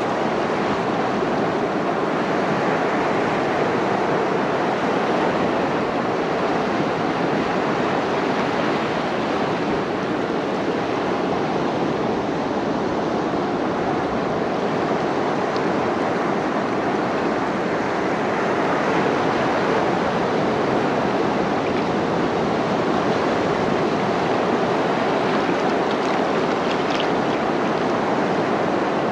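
Ocean surf washing in among shoreline rocks: a steady rush of water with no distinct breaks.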